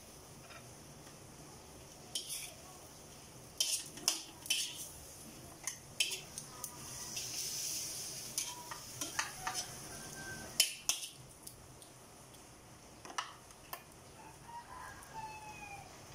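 A metal spatula scraping and clanking irregularly against a stainless steel wok as vegetables are stir-fried, with a soft sizzle under it.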